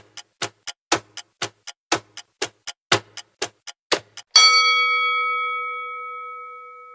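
Quiz countdown sound effect: a clock ticking about four times a second, then a bell-like chime at about four seconds in that rings on and slowly fades away, marking time up and the answer reveal.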